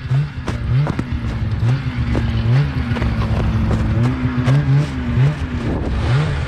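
Snowmobile engine running with repeated short throttle blips, over fast, irregular clicking.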